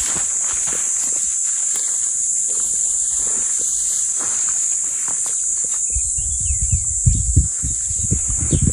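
A steady, high-pitched chorus of insects in dry bush, with footsteps brushing through dry grass. From about six seconds in come heavier, irregular thuds of footfalls.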